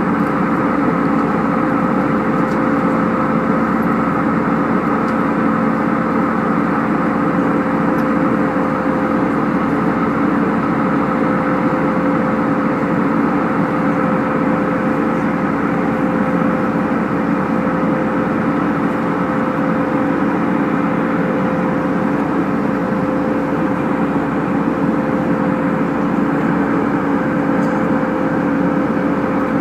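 Steady drone of an airliner cabin in flight: engine and airflow noise with a steady hum in it.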